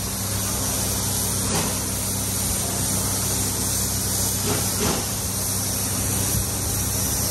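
Compressed-air spray gun hissing steadily as it sprays black paint onto an alloy wheel rim, with a steady low hum underneath.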